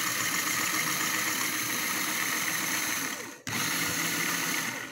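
Lego Technic motor and gear train spinning a whisk in a glass of water, running with a steady fast whir. It cuts out for a moment about three and a half seconds in, starts again, and stops right at the end.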